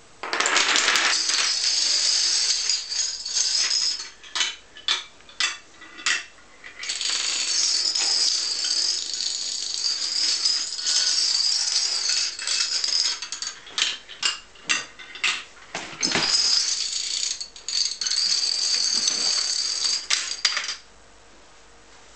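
Long chains of small toy dominoes toppling in a rapid continuous clatter, breaking in places into short separate runs of clicks, and stopping about a second and a half before the end.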